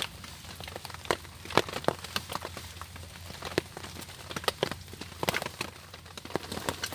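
Small campfire of split kindling sticks crackling, with irregular sharp snaps and pops.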